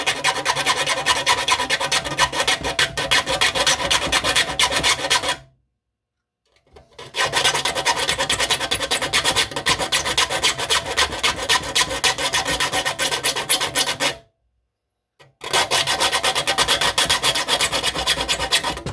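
Triangular file rasping across the teeth of a hand saw in quick back-and-forth strokes, sharpening the dull teeth. The filing comes in three runs, stopping dead for a second or two about five seconds in and again about fourteen seconds in.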